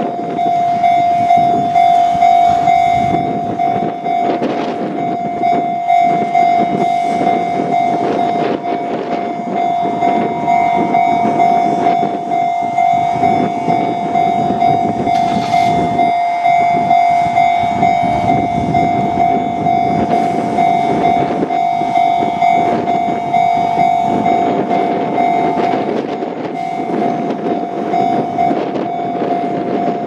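Japanese level-crossing warning alarm ringing continuously at one steady pitch, with a Kintetsu train running slowly toward the crossing underneath it.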